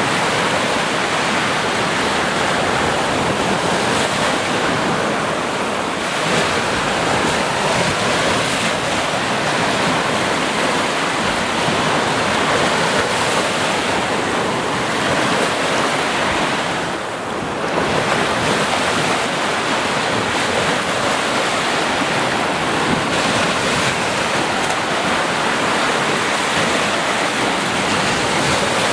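Sea waves washing onto a beach: a steady rush of surf, briefly quieter about two-thirds of the way through.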